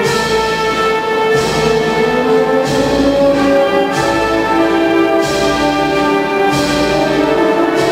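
Wind band playing a slow processional march: sustained brass and woodwind chords over a slow, steady beat, with a percussion crash a little over a second apart.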